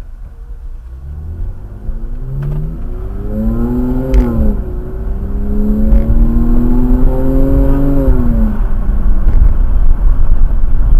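BMW E90's engine accelerating with a Euro airbox intake fitted: the pitch climbs, drops sharply about four seconds in as at a gear change, climbs again, then falls away near the end, over a heavy low rumble that grows louder.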